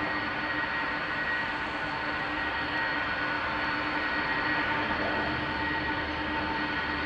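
Boeing 747-400 freighter's four jet engines at taxi power: a steady rushing whine with several held tones.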